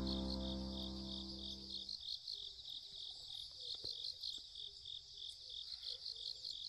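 Crickets chirping faintly in an even pulsing rhythm, about three pulses a second, while background music fades out over the first two seconds.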